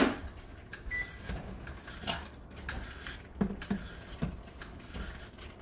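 Kitchen handling sounds at the stove: scattered light knocks and clatter of a utensil and dishes, with one short electronic beep about a second in.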